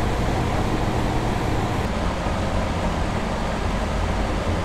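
Steady hum and whoosh of a running fan or blower motor, with a low electrical hum beneath it.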